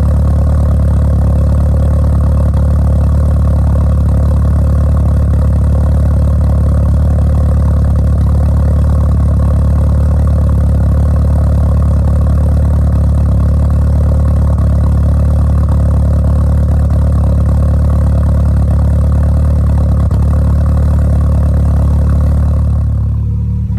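Volkswagen GTI engine running steadily at low speed, an engine the owner believes has a misfire in cylinder 1.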